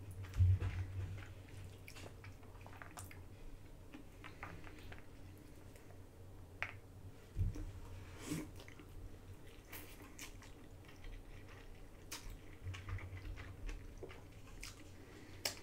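Close-up eating sounds: lo mein noodles being chewed and drawn into the mouth, soft wet mouth clicks scattered throughout. Two low thumps, about a third of a second in and again about halfway.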